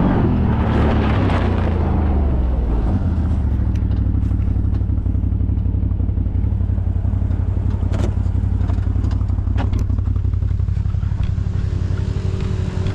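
Off-road side-by-side engine dropping from higher revs in the first few seconds, then idling steadily. There are a few sharp clicks or knocks around the middle, and a second, higher engine tone joins near the end.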